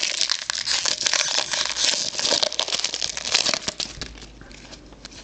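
Foil wrapper of a trading card pack crinkling and crackling as packs are opened and handled. It goes loud and busy at first, then drops to faint rustling about four seconds in.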